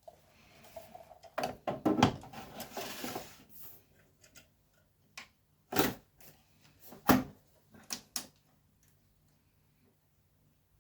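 Hot-swap power supply module being handled and fitted into the NetApp FAS2040 chassis: clicks and a sliding scrape, then three sharp knocks about six, seven and eight seconds in as it is pushed home.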